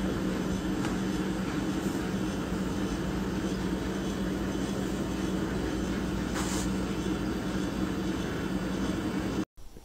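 A steady low machine hum holding one pitch, cutting off abruptly near the end.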